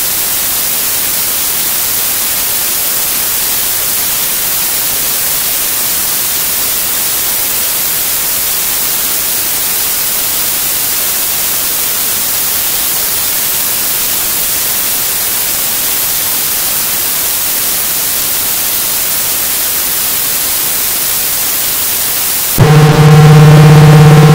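Experimental music: a steady, loud white-noise hiss, cut off abruptly near the end by a loud chord of sustained low tones.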